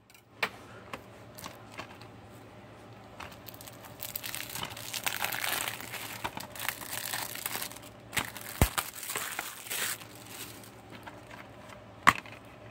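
Cellophane shrink wrap being torn and peeled off a plastic DVD case. It crinkles in scattered bits at first, then densely for several seconds in the middle. A sharp click comes near the end as the case is pried open.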